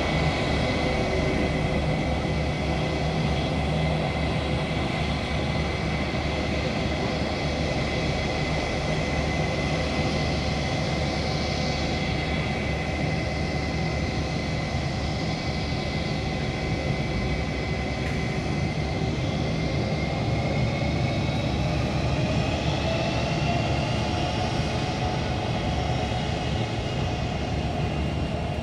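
Jet engines of a Brazilian Air Force airliner running as it moves along the runway: a steady rumble and whine, the whine rising slightly in pitch over the last several seconds.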